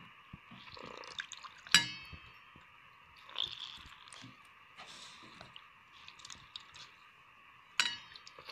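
Soaked urad dal vadas squeezed by hand in a steel bowl of hot water: soft splashing and dripping as the water is pressed out. Two sharp, ringing metallic clinks off the steel bowl come about two seconds in and near the end.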